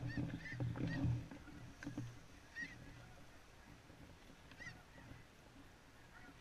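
Snow goose calls: scattered short, high honks, coming thickly for the first few seconds and thinning out toward the end, over a faint low rumble early on.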